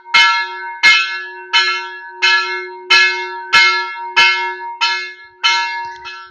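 Temple bell struck over and over at a steady pace, about one and a half strokes a second, each stroke ringing bright over a low hum that carries on between strokes; the last strokes come a little fainter.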